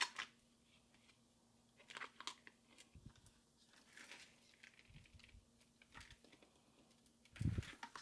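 Hands handling the plastic intercom mount and its cables against the helmet: scattered faint clicks and rustles, with a soft thump about seven and a half seconds in.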